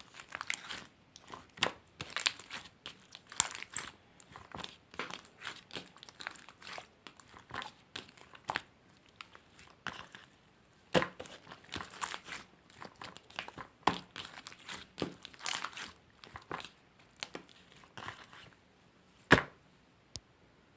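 Glitter slime being squished and pressed by hand: an irregular run of sticky clicks and crackling pops, ending with one sharp click near the end.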